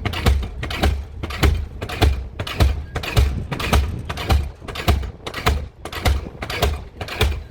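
Diesel pile hammer running, striking the pile in a steady rhythm of heavy, sharp blows close to two a second.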